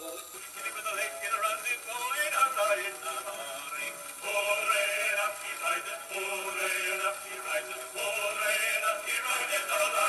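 A shellac 78 record playing acoustically through a homemade gramophone's sound box and plastic-pipe tone arm: a man singing with accompaniment, thin and bass-less with surface hiss. A little after four seconds the playback changes abruptly as a second, chrome sound box takes over.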